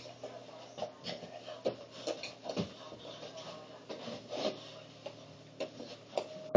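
Feet thumping and shuffling on the floor as a person dances, an irregular run of soft knocks and scuffs with a louder thud at the very end.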